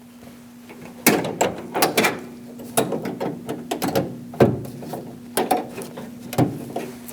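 Irregular sharp clicks and knocks of plastic and metal parts being handled inside a van's steel rear door, with a faint steady hum underneath.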